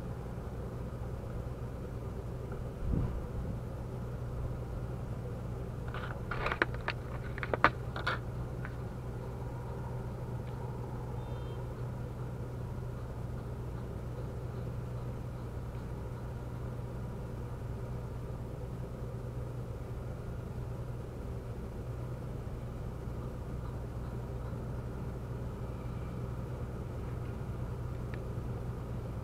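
A steady low rumbling hum throughout, with a thump about three seconds in and a quick run of sharp clicks and taps a few seconds later from fishing tackle being handled.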